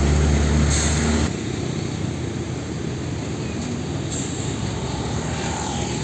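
Diesel engine of a Hino dump truck running loud and close as the truck passes, cutting off suddenly about a second in. After that comes steadier, quieter road traffic noise as another dump truck approaches along the street.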